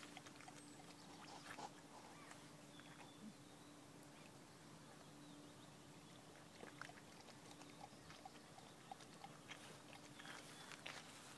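Near silence: faint scattered small clicks over a thin, steady low hum.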